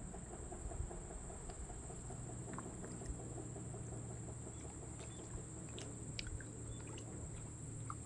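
Outdoor pond-side ambience: a steady high-pitched insect drone, with a fast ticking call at about six ticks a second that fades out a few seconds in. Low rustling and rumble and a few short chirps and clicks run underneath.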